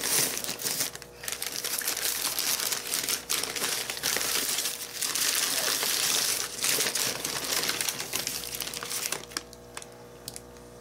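Crumpled newspaper packing rustling and crinkling as it is handled and pulled out of a cardboard shipping box, dying down about nine seconds in.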